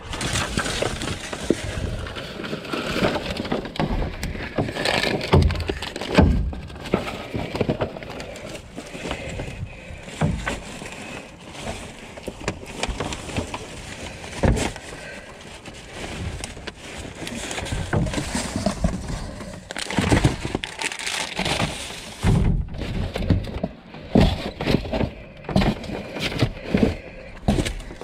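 Hands rummaging through discarded cardboard boxes and plastic-wrapped packaging in a dumpster: continual irregular crinkling, rustling and knocks as items are shifted and pulled out.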